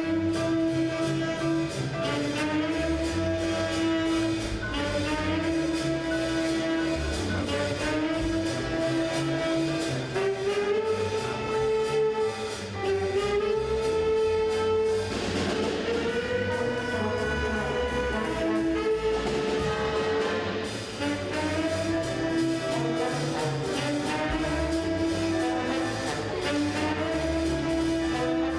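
High school jazz band playing a swing tune: brass riffing on a repeated melody over drums keeping a steady beat.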